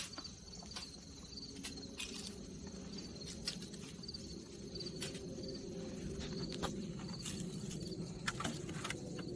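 Crickets chirping in a steady rhythm, about two to three chirps a second, with a few scattered clicks and knocks.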